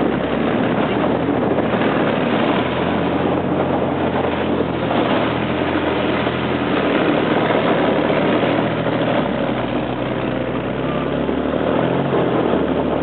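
Tracked armoured vehicle under way, its engine running loud and steady, heard from on top of the hull; the engine note shifts slightly about two-thirds of the way through.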